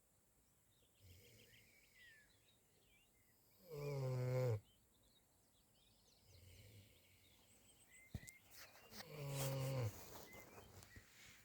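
A sleeping animal snoring: two drawn-out, pitched snores about five seconds apart, each just under a second long and dropping in pitch at the end.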